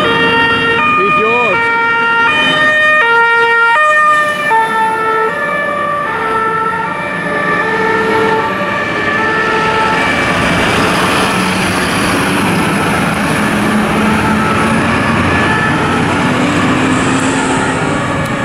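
Several German two-tone fire engine sirens (Martinshorn) sounding at once at different pitches, each switching back and forth between two notes. From about ten seconds in, a fire truck's diesel engine pulling away close by drowns out the sirens.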